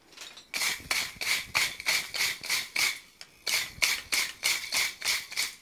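Hand wire brush scrubbing a hot forged steel hook on an anvil face, knocking off forge scale: quick back-and-forth strokes, about four a second, in two runs with a short pause just past the middle.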